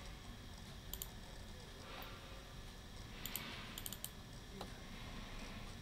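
A handful of faint, scattered clicks of a computer mouse over a low room hiss.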